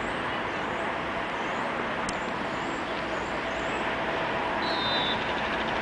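Steady noise of road traffic, with a few faint high chirps and one short high whistle about five seconds in.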